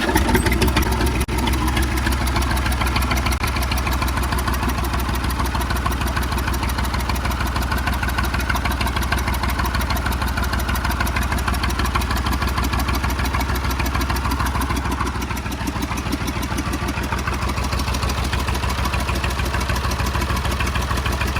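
Old backhoe engine idling steadily just after starting on its new starter motor, with a fast, even beat of firing pulses.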